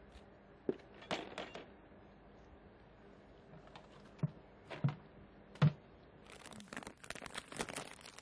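Scattered clicks and knocks of things being handled, then, from about six seconds in, a dense crinkling rustle of a plastic bag being handled.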